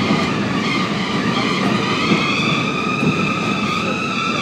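R32 subway train running through a tunnel: a steady rumble of wheels on rail with a high, slightly wavering whine over it.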